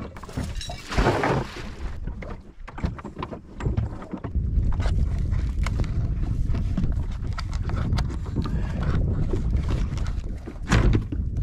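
Anchor rope being handled and tied off around a bow cleat on a small boat, with the rope rubbing and repeated small knocks on the hull, over wind buffeting the microphone and water lapping. A louder knock comes near the end.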